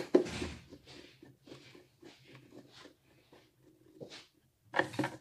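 Scattered small plastic clicks, taps and scrapes from handling a Sinbo electric kettle's plastic housing while its clips are worked into place, with a louder cluster of knocks near the end.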